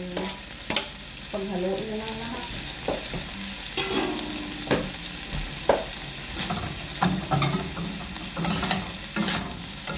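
Stir-frying in a stainless steel wok: vegetables and pork sizzle in oil while a metal spatula scrapes and knocks against the pan, with sharp clacks scattered through.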